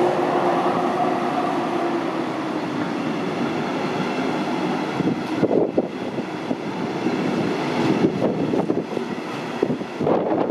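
Locomotive-hauled regional train of double-deck coaches rolling past a station platform. The electric locomotive's steady two-tone hum fades within the first couple of seconds. Then the coaches' wheels run by with a rumble and irregular clacks over the rail joints from about halfway through.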